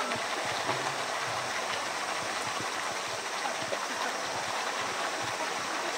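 Steady rush of running water, with indistinct chatter of people in the background.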